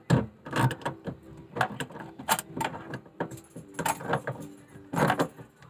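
Irregular light metallic clinks and clicks of pliers knocking against a kitchen faucet's threaded end while a water filter fitting is worked onto it, about two or three a second.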